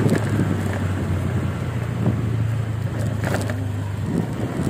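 Motorcycle engine running steadily while under way, with wind noise on the microphone and a brief rattle about three seconds in.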